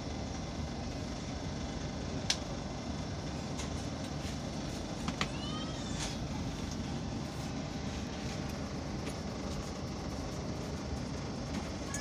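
Steady rumble of a moving passenger train, heard inside a sleeper coach. A sharp click comes about two seconds in, and a few clicks and a brief high squeak come around five to six seconds.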